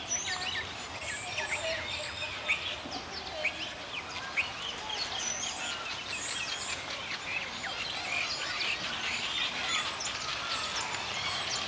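Many small birds chirping and twittering at once, a dense chorus of short high calls over a steady outdoor background hiss.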